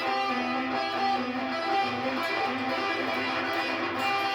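Electric guitar playing a phrase of notes that ring on and overlap one another as new ones come in.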